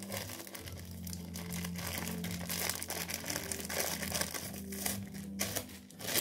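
Clear plastic bag crinkling as hands rummage in it to pull out a hot-glue stick refill, over a low steady hum.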